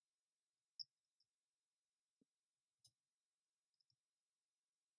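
Near silence with a handful of faint, short clicks and ticks from fine tweezers handling rigging line on a plastic model, the sharpest about a second in.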